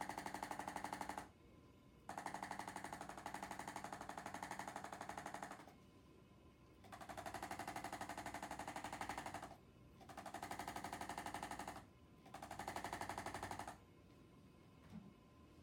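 Handheld electric percussion instrument running in bursts of rapid, even tapping with a motor hum, switched on and off five times for one to three and a half seconds each, then stopping near the end.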